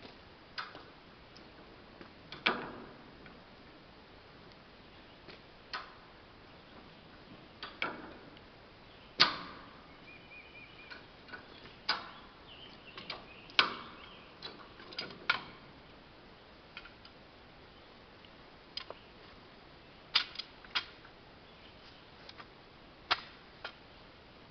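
Irregular sharp clicks and knocks from hand tools and rigging being worked, a dozen or more strikes at uneven intervals, some ringing briefly. The loudest come about nine and thirteen seconds in.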